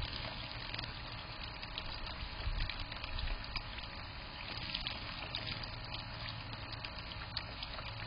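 Bird-bath fountain spout pouring a steady trickle of water into its basin. Small birds bathing in the baths add scattered small splashes.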